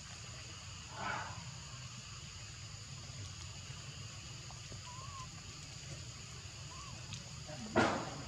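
Infant macaque giving two short, shrill cries, one about a second in and a louder one near the end as its mother grabs it. Faint chirps and a steady outdoor hiss run beneath.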